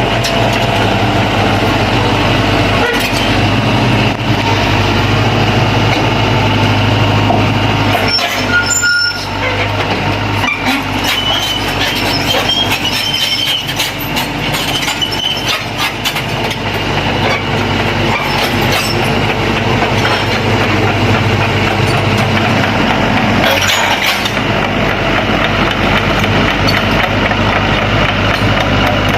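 Sany SY75C excavator's diesel engine running steadily under load while rocks clatter and knock, with a run of clattering about a third of the way in and a shorter burst later.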